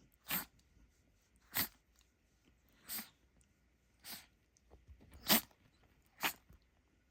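A dog sneezing over and over, six sharp sneezes about a second and a quarter apart, the loudest about five seconds in. The sneezing fit comes from a dust particle stuck in the dog's nose.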